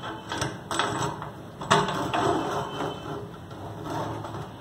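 Flexible supply hoses and metal fittings of a single-lever kitchen mixer tap being pushed through the tap hole in a granite countertop, knocking and scraping against the stone and the steel sink, with a few sharp clicks in the first two seconds.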